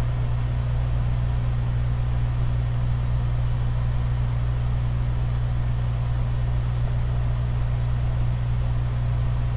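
Yaxun 850 hot air rework station blowing hot air over a reballing stencil: a steady low hum with an even hiss of air, as the solder paste under the stencil melts into balls.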